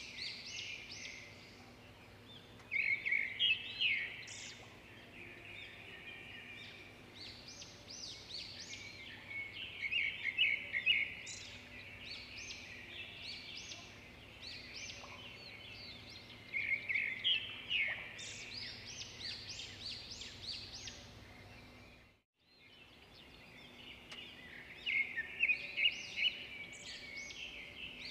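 Birds singing: bursts of short high chirps and trills every few seconds over a faint steady hum, with a brief cut to silence about 22 seconds in.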